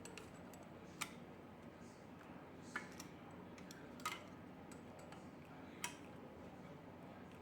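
A few sharp, light clicks and taps of small tools being handled, about four clear ones spaced a second or two apart, over a steady low hum.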